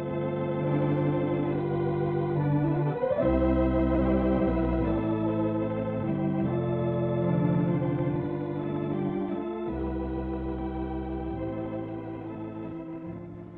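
Organ playing the programme's closing theme in held chords that change every second or two, fading out near the end.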